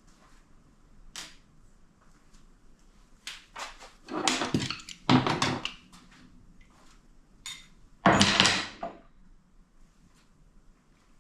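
Metal parts clattering and knocking as they are handled and set down during work on an automatic transmission, with the loudest clusters about four to six seconds in and again around eight seconds.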